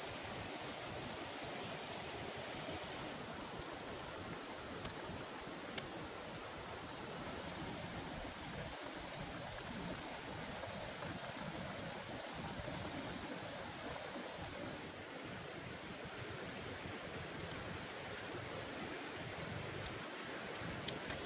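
Spicy chicken-thigh braise bubbling and simmering steadily in a wok over a wood fire. A few sharp crackles come from the fire.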